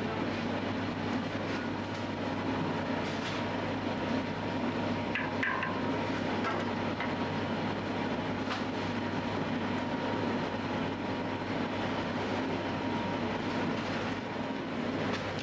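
Bakery dough mixer running steadily with a low motor hum as its hook turns through a bowl of dough. A few brief high squeaks come about five seconds in.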